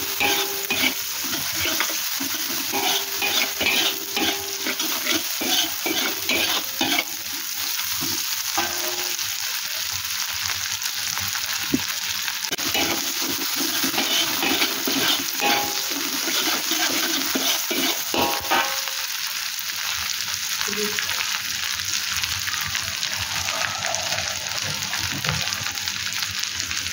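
Chili paste sizzling in hot oil in a wok while a metal spatula scrapes and stirs it, the scraping coming in runs with short metallic ringing. The stirring stops about two-thirds of the way through and the frying sizzle carries on alone.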